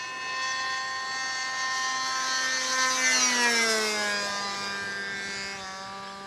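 Richmodel Spitfire 40 radio-controlled model plane's engine buzzing at steady throttle as the plane flies past. The sound grows louder toward about three seconds in, its pitch drops between three and four seconds in as the plane passes, and then it fades.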